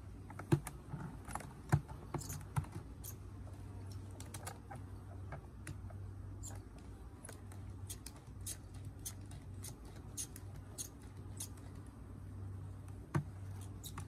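Irregular light clicks and taps, with a few sharper knocks, as hands work on the wooden lid and ratchet strap of a beehive. A steady low hum runs underneath.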